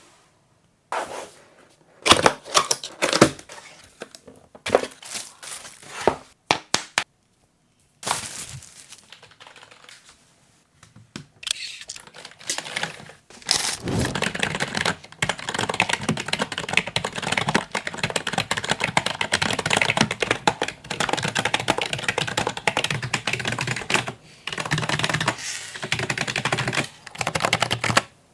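Keys of a FuryCube IP98 Pro mechanical keyboard clacking. There are scattered single presses and short runs first, then fast, continuous typing from about halfway, with a brief pause near the end.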